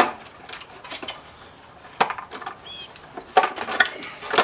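Irregular clicks, clinks and knocks of plastic and metal parts being handled and pulled out of an electric scooter's body during a hand teardown, with a few sharper knocks about two seconds in, around three and a half seconds in and near the end.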